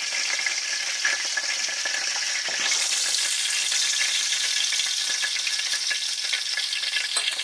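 Deer leg meat searing in hot oil in a pan, sizzling steadily; the sizzle grows louder about two and a half seconds in.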